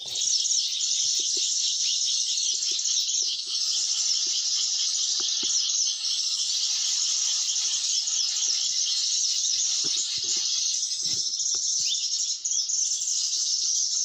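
A dense, continuous chorus of rapid, high-pitched chirps from forest birds and insects, with a few faint knocks underneath.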